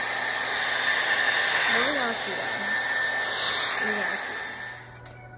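Handheld hair dryer blowing steadily with a thin high whine, heating the glued lace edge of a wig to set it. It cuts off about four to five seconds in.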